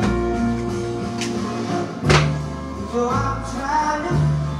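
Blues music playing, held notes over a bass line, with a sharp knock about two seconds in and a singing voice coming in about three seconds in.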